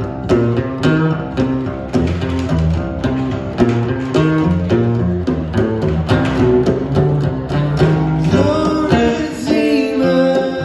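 Live acoustic guitar played with bongos tapping a steady rhythm, with a singing voice coming in near the end.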